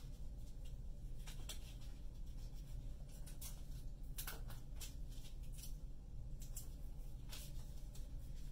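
Construction paper being handled, with scattered soft rustles and clicks. About halfway through, tape is pulled and torn off a desktop tape dispenser.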